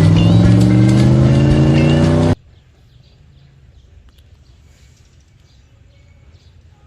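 A vehicle engine revving up, its pitch rising steadily, which cuts off suddenly a little over two seconds in. Then faint outdoor background with a few bird chirps.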